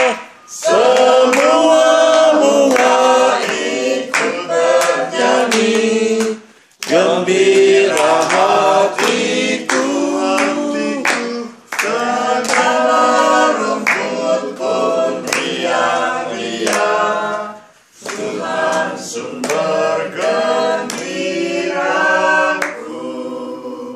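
Small group of voices, women among them, singing an Indonesian worship song together, unaccompanied, with short breaks between phrases and fading out near the end.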